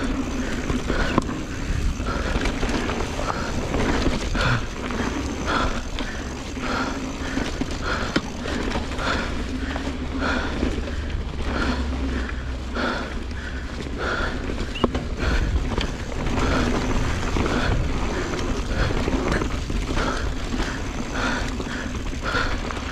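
Mountain bike ridden along a dirt trail: tyres rumbling over the ground and wind on the microphone, with a rhythmic puffing about twice a second.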